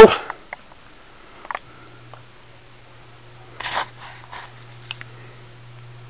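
A click, then a ceiling fan motor starting up with a steady low hum. A few light clicks and a brief rustle follow a couple of seconds later.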